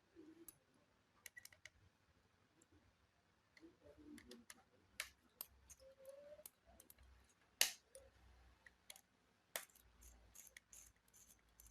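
Scattered small clicks and taps from handling the parts of an opened laptop, with two sharper clicks in the second half.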